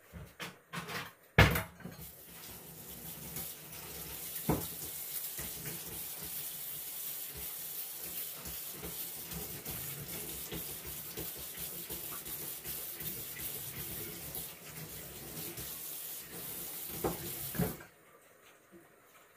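Tap water running steadily into a sink, then shut off suddenly near the end. A few knocks come just before the water starts.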